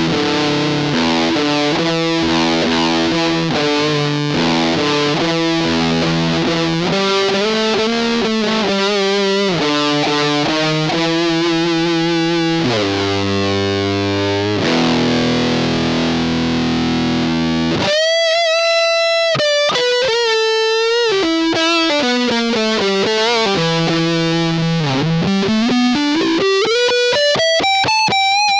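Fender Blacktop electric guitar played through a Russian-style Big Muff Pi fuzz pedal, recorded direct through a cab simulator: thick fuzzed chords and riffs, with some held chords. About two-thirds of the way in it changes to long sustained single lead notes with bends, and a slide up near the end.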